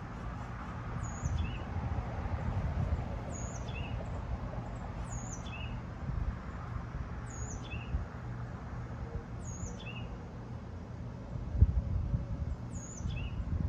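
A Hampton Bay Princeton II ceiling fan running, a steady low rumble of motor and moving air with soft irregular thumps. Over it, a short high chirp sweeping downward repeats about every two seconds.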